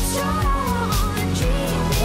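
Background music with a steady drum beat, a bass line and a wavering melody.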